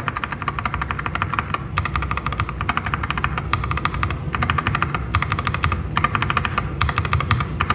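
Rapid, steady keystrokes on two unlubed tactile mechanical switches, an Akko Jelly Sponge and a Fantasy Virus, with keycaps on the G and H keys. The Jelly Sponge key rings out more hollow than the Virus, which sounds tighter and deeper.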